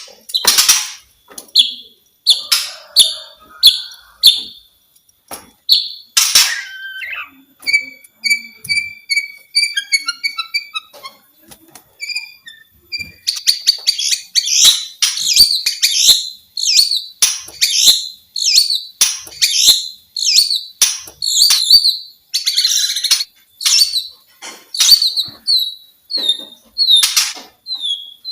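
White-rumped shama singing a varied song of short whistled and chattering notes. It starts with repeated single notes spaced out, runs into a quick series of repeated notes, then from about halfway becomes a dense, fast flow of phrases.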